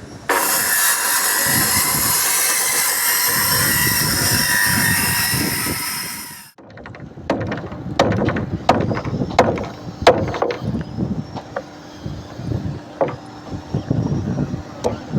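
A power tool working wood, running loud and steady with a high whine for about six seconds before cutting off abruptly, followed by irregular knocks and taps on timber.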